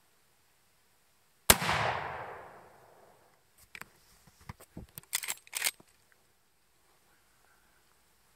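A single rifle shot from a .30-30 lever-action rifle, a sharp crack with an echo through the woods that dies away over about a second and a half. A string of smaller sharp clicks and clacks follows a couple of seconds later.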